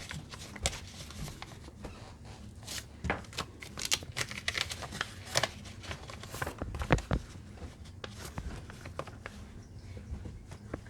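Paper being handled and shifted around on a work table: irregular rustles and light taps.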